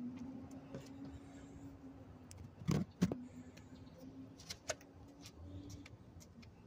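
Thuds of hands and feet on a concrete driveway during a burpee: two loud thuds close together about halfway through, then a few lighter taps. A faint steady hum runs underneath.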